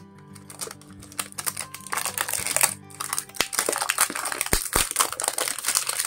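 Clear plastic wrapping crinkling and crackling as it is peeled off a cardboard phone box by hand. It starts about a second in and is loudest from about two seconds on, over soft background music.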